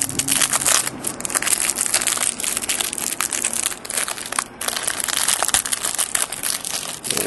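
Clear plastic trading-card pack wrapper crinkling and crackling as it is opened and the cards are slid out, with brief pauses about a second in and again past the middle.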